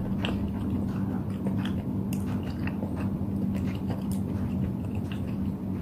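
Close-up eating sounds: a mouthful of noodles being chewed, with many small wet mouth clicks, over a steady low hum.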